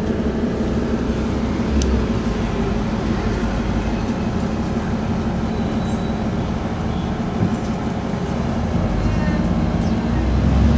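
Steady engine and road rumble inside a moving double-decker bus, with a low drone under it.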